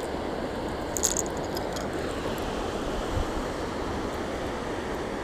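Fast floodwater rushing steadily over and past a concrete crossing. About a second in, a short cluster of light metallic clicks as the crankbait and its hooks are handled.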